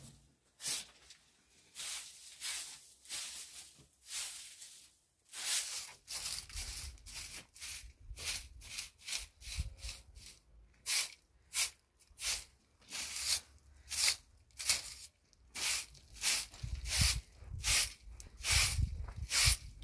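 Dry grass or vegetation rustling and tearing in a long series of short crunchy strokes. The strokes come faster and more evenly in the second half, with dull thumps joining them.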